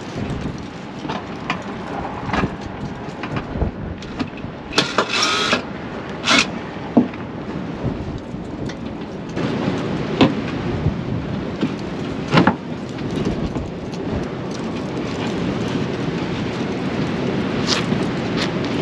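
Steady low outdoor rumble with scattered clicks and metallic knocks of hand tools as work is done in a pickup truck's front wheel well, with a short clattering stretch about five seconds in.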